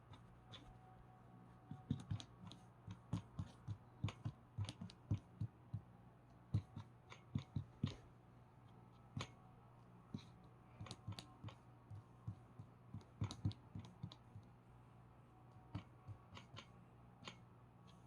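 Soft, irregular taps and clicks coming in quick clusters over a faint steady hum: a cat batting at a vacuum cleaner cord with its paws, the cord knocking against the floor.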